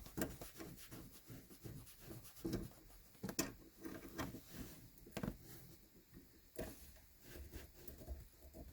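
Faint scattered clicks, light knocks and rubbing from hands working on a car's gear-shift linkage, with the sharpest knock about three and a half seconds in.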